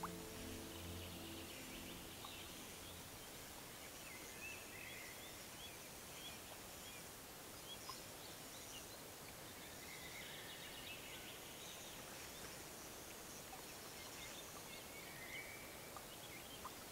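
Soft background music fades out in the first few seconds, then birds chirp and call faintly, in short scattered calls, over a quiet outdoor background.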